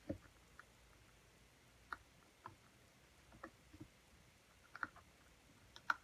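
Faint, irregular light clicks and ticks, about eight in all, from the metal poker tip of a Take Your Pick craft tool picking at and lifting small glued paper pieces on a cardstock card.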